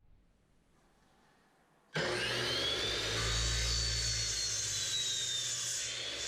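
Electric chop saw (miter saw) starting up suddenly about two seconds in, its motor rising to a high steady whine as the blade cuts through a 1x4 pine board.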